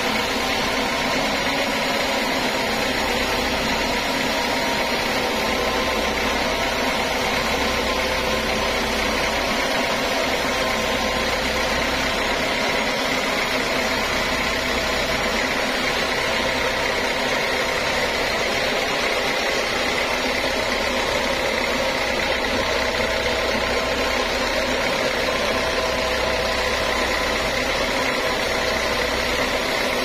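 Large log band sawmill running, a continuous machine drone at a steady pitch and level with a faint whine above it.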